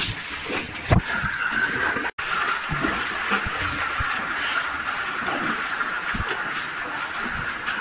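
Steady rush of water running through a cave passage, with a sharp knock about a second in and scattered low thumps.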